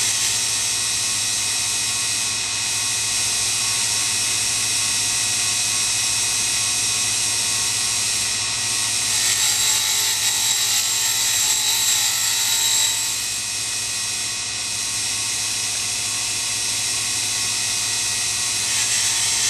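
Grinding wheel of a miniature Sherline cam grinder spinning with a steady high-pitched whine while a diamond dresser is fed across it to true the wheel. From about nine to thirteen seconds in, a louder, brighter hiss joins as the diamond cuts across the wheel face.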